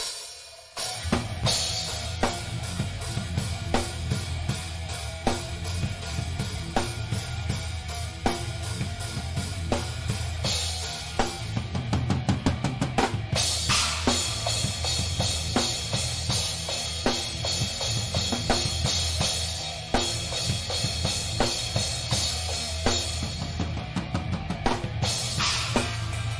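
A rock band playing live, with the drum kit up front: kick drum, snare and cymbals over a steady low bass. About twelve seconds in the drums break into a rapid fill.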